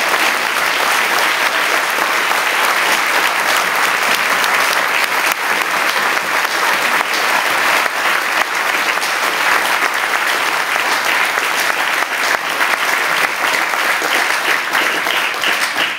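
Audience applauding steadily, many hands clapping together in a dense, sustained wash of claps.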